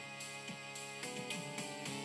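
Background music with a steady beat: held instrument tones over regular drum hits about twice a second.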